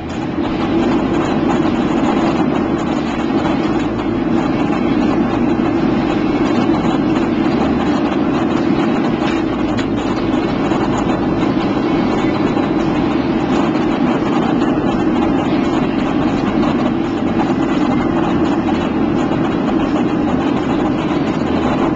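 Steady engine and airflow noise inside a jet airliner's cabin in flight, even and unbroken throughout.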